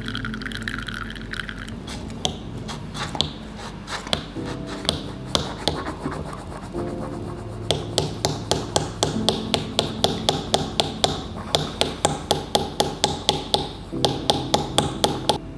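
Milk being frothed in a Bodum French press: the plunger knocks and clicks in the glass carafe with each stroke, irregular at first, then in a quick steady rhythm of about three a second from halfway through, with a brief pause near the end. Background music plays throughout.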